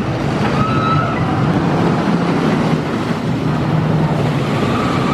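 Lightning Rod roller coaster train running along its track: a steady, loud rumble, with a few faint bird chirps.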